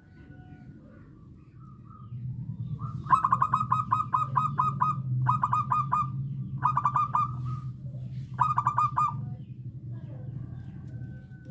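Zebra dove (perkutut) calling: four bursts of quick, repeated staccato notes, the first about two seconds long and the others shorter, over a steady low hum.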